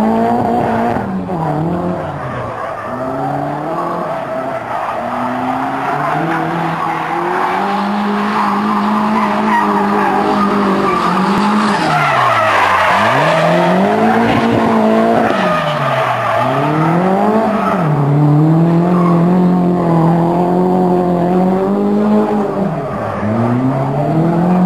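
Drift car's engine revving up and down over and over as the car slides sideways, with its tyres squealing and hissing on the tarmac while they smoke. The tyre noise is loudest about halfway through.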